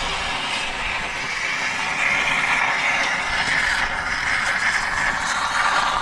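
Exothermic magnesium cutting rod burning in an oxygen stream as it melts through a seized steel pin: a steady, loud, hissing roar with crackle, dropping slightly in pitch near the end.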